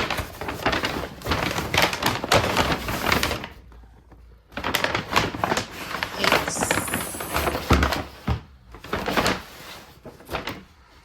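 Groceries being handled and unpacked from a delivery bag: repeated rustling of the bag and knocks and thunks as items are moved and set down, with a short pause about four seconds in and a single low thump about eight seconds in.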